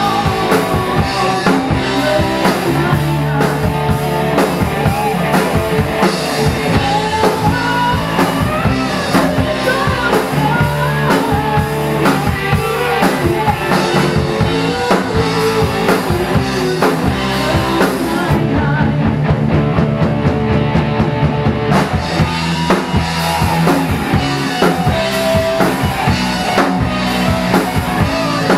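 Live rock band playing: a woman singing lead over electric guitars, bass guitar and a drum kit. The cymbals fall silent for about three seconds past the middle, then come back in.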